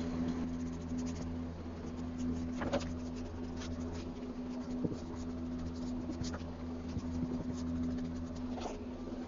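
Paintbrush strokes scratching and tapping on a wooden buffet as enamel paint is brushed on, irregular and short, over a steady low hum.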